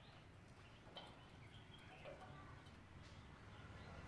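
Near silence: faint outdoor background with a few faint, short high chirps and light clicks.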